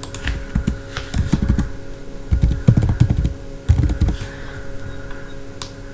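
Computer keyboard typing in short bursts of keystrokes, stopping about four seconds in.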